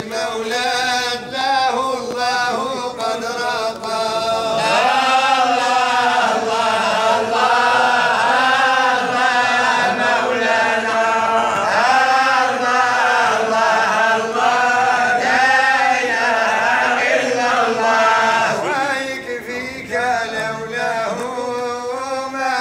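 A group of men chanting Sufi praise poetry (madih) together, in long melodic lines that rise and fall.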